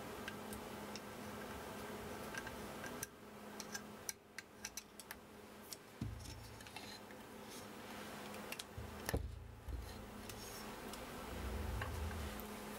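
Small metal clicks and taps from a hand screwdriver and parts of a laser engraver's metal frame being handled during assembly, with a few dull knocks against the workbench. A low steady hum runs underneath.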